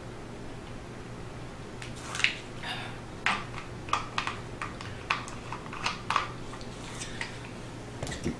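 A steady low hum, with irregular light clicks and clinks of small objects being handled from about two seconds in, about a dozen in all.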